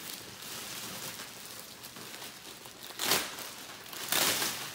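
Clear plastic bag crinkling and rustling as car floor mats are pulled out of it, with two louder rustles about three and four seconds in.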